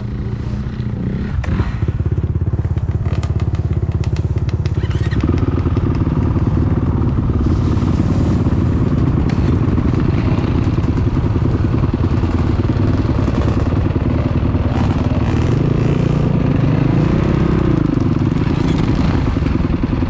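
Off-road dirt bike engines idling with a rapid, steady firing beat that picks up about five seconds in. Near the end one engine revs briefly, rising and falling in pitch.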